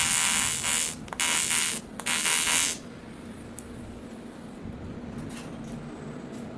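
AC TIG welding arc buzzing on aluminum, breaking off briefly about one and two seconds in, then cutting out just before three seconds in. A low steady hum remains after the arc stops.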